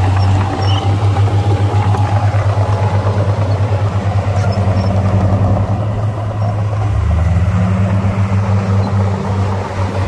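Heavy diesel engine of earthmoving machinery running with a steady low, pulsing throb; its pitch shifts about seven seconds in.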